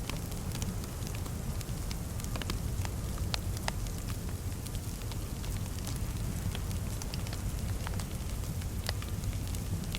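Fireplace crackling: irregular sharp pops and snaps of burning wood over a steady low rumble of the fire.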